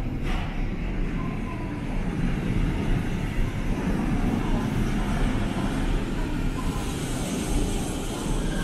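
Chiba Urban Monorail suspended train running into the station alongside the platform: a steady rumble that grows louder about two seconds in as the cars pass close by.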